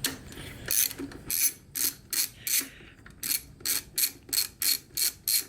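Hand ratchet clicking as it is worked back and forth to loosen a bolt: sharp regular clicks, about three a second, with a short pause about halfway through.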